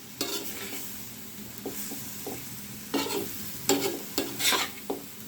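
A spatula stirring and scraping ash gourd bhaji in a large pot, in a few short irregular strokes, over a faint steady sizzle of the vegetables frying as their last moisture cooks off.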